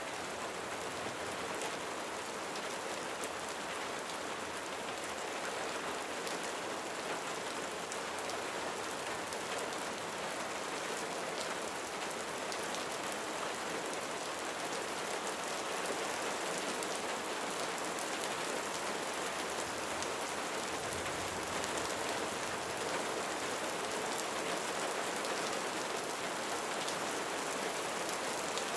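Steady rain falling on a roof, a continuous even hiss with individual drops ticking through it.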